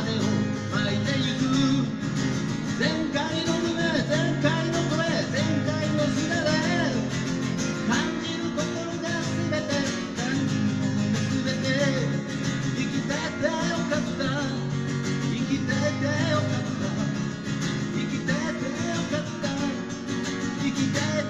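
Acoustic guitar strummed steadily through a PA, with a voice singing over it.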